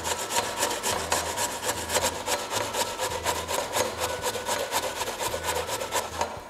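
Onion being rubbed back and forth on a stainless-steel hand grater: a continuous run of quick rasping scrapes.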